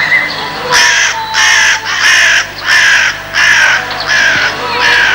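A crow cawing repeatedly: seven harsh caws, each slightly falling in pitch, about two-thirds of a second apart.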